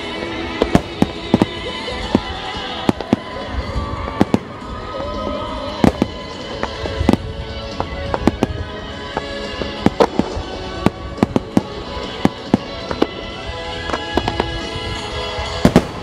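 Wide starmine fireworks: a rapid, irregular string of shell bursts with music playing alongside, the bursts crowding together and loudest near the end.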